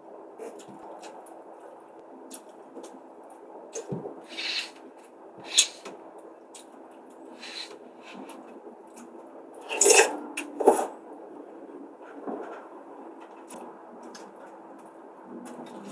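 Eating sounds: wet chewing and mouth noises with occasional sharp clicks of a spoon or chopsticks on the bowl, the loudest pair about ten seconds in.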